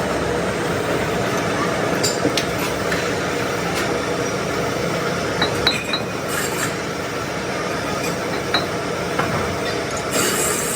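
Steady workshop noise with sharp metallic clinks every few seconds, metal parts or tools knocking together.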